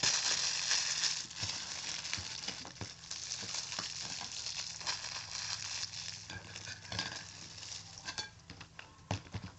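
Crackly rustling and handling noise close to the microphone, loudest in the first second and fading, with a few scattered clicks near the end.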